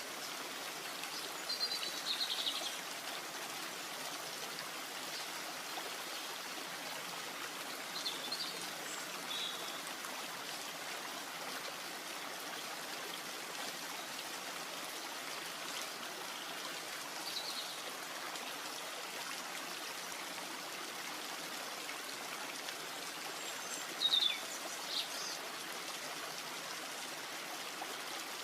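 Steady rushing water from rain in a forest, an even hiss throughout. A few short high chirps break through four times: about two seconds in, around eight to nine seconds, around seventeen seconds and near the end.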